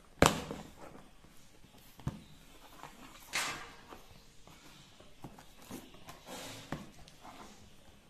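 Hands opening a cardboard box and handling the packing inside: a sharp knock near the start, another knock about two seconds in, a brief swish of cardboard sliding just past halfway, and scattered light taps and rustles of card and paper.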